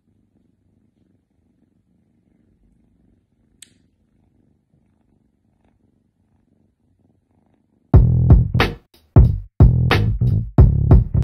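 A cat purring faintly and steadily. About eight seconds in, loud music with a heavy electronic drum beat starts abruptly.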